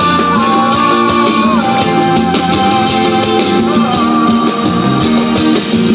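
Pop-rock ballad music: long held melody notes that glide from one pitch to the next over a full band accompaniment.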